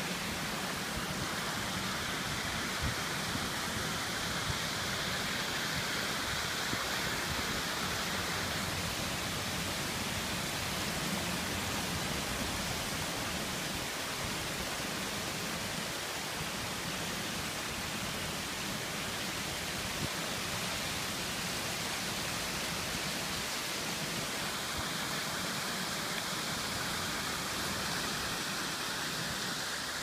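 Fountain water spilling in thin sheets down a stepped wall and over the edges of shallow pools: a steady, even rush of falling water.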